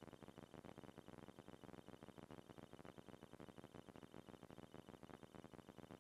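Near silence: a faint, steady crackle of noise from a poor microphone.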